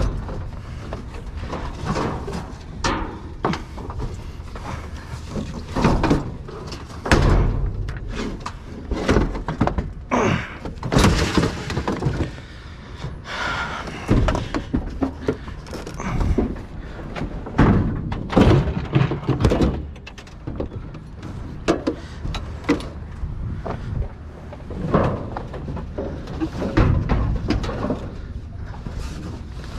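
Trash and scrap being rummaged and shifted inside a dumpster: an irregular run of thunks, bangs and knocks as items are handled and dropped.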